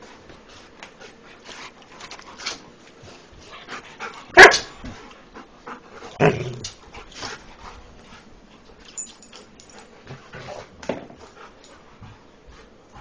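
Dogs barking at play: one loud sharp bark about four seconds in, a second with a falling pitch about two seconds later, and a softer one near the end, over steady scuffling and small clicks.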